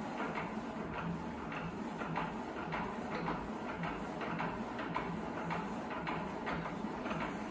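Small metal lathe running under power, a steady motor hum under quick, irregular ticking, as a threading die in a tailstock die holder rides along a rod turning in the chuck.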